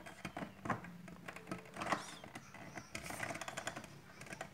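Plastic clicks and knocks as the rice dispenser's plastic top frame is pressed down and fitted into its slots, with a quick run of small ticks about three seconds in.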